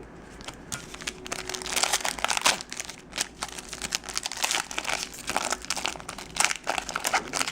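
Foil wrapper of a Yu-Gi-Oh booster pack crinkling as it is handled and opened, a dense patter of crackles starting about half a second in.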